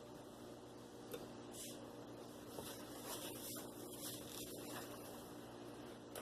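Quiet room tone: a steady faint hiss and low hum, with a few faint soft handling sounds in the middle.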